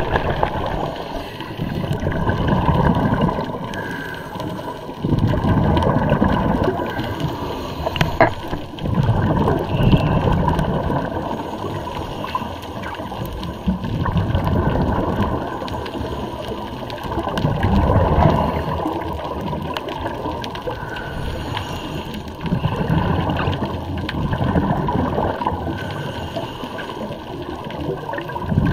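Scuba diver's regulator breathing heard underwater: exhaled bubbles gurgling in swells that come and go every few seconds.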